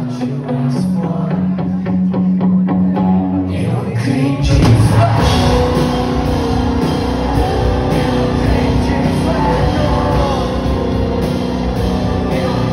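Live rock band playing with a male singer: a lighter passage of held low notes and voice, then the drums and full band come in about four seconds in and carry on loud.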